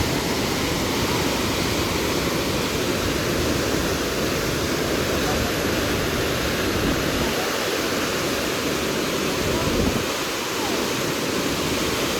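Waterfall rushing steadily: a dense, even wash of falling water with no break.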